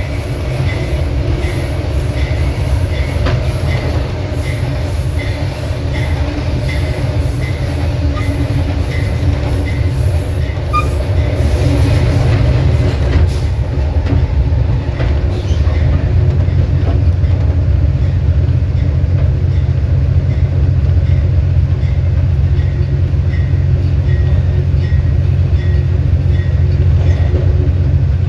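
GE Dash 8-32BWH diesel locomotive's 12-cylinder prime mover running steadily, heard from right behind the engine, over the rumble of wheels on rail and a regular light ticking. It grows louder about halfway through.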